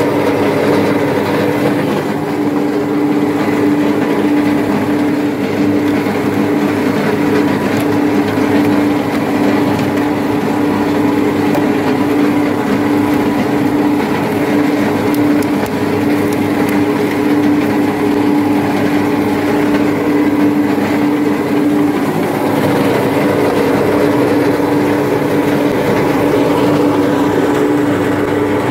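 Plastic shredder running with a steady, constant hum as plastic bottles are fed into it to be shredded.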